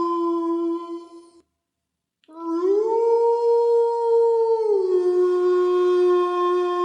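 Wolf-howl sound effect: a long howl held on one pitch that breaks off about a second and a half in, then after a short silence a new howl that rises, holds higher, and drops back to the first pitch around five seconds in.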